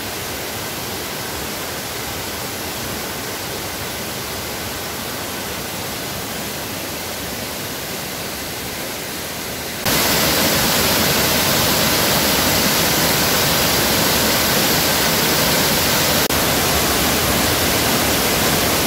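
Steady rushing of a waterfall pouring onto rocks and its rocky stream, a continuous noise with no rhythm. It jumps markedly louder about ten seconds in and stays level after that, apart from a momentary dip near the end.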